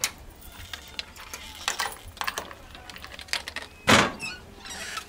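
Irregular sharp clicks and taps, with one louder knock about four seconds in.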